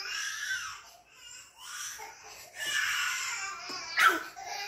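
A baby vocalizing in high-pitched, drawn-out sounds in several stretches, with a short, much louder call about four seconds in.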